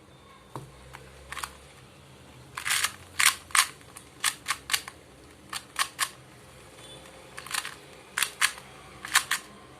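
Plastic 2x2 Rubik's cube being turned by hand, its layers snapping round in quick irregular clicks and clacks, some in fast runs of two or three turns.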